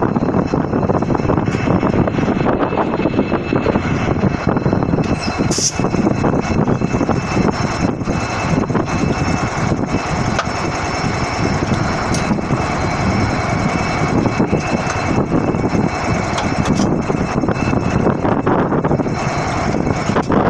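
Diesel locomotive's engine running steadily at idle close by: a loud, even rumble with a faint steady whine over it. A short sharp sound cuts in about five and a half seconds in.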